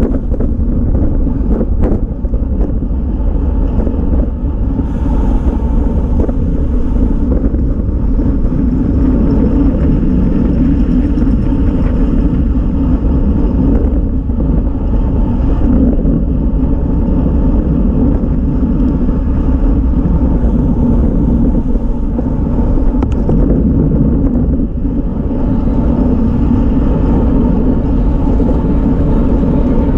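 Loud, steady wind rumble on the microphone of a camera mounted on a road bike travelling at about 25 mph, mixed with road noise.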